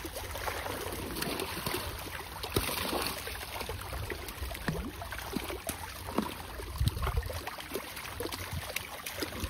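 Water splashing and trickling, with many small irregular splashes or knocks, over a low rumble of wind on the microphone.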